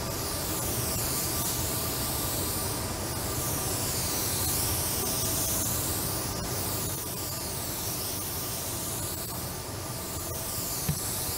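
Gravity-feed paint spray gun spraying a body panel: a steady hiss of compressed air and atomised paint that swells and fades every few seconds as the gun sweeps back and forth.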